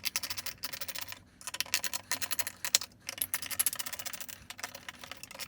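Rapid clicking of a screwdriver backing out the retaining screws of an AMD Wraith stock CPU cooler, in several runs separated by short pauses.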